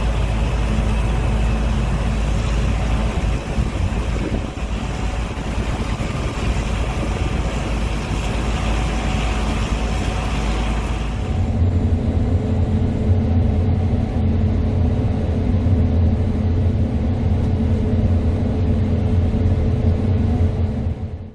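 Gleaner S98 combine running steadily while harvesting oats: engine and threshing machinery in a continuous drone. About eleven seconds in the sound shifts to a deeper, steadier hum with less hiss, and it cuts off abruptly at the end.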